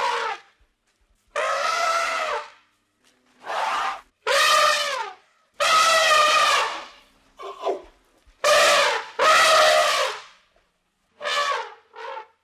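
An animal calling loudly over and over: about ten calls, each half a second to a second long, separated by short pauses, several dropping in pitch at the end.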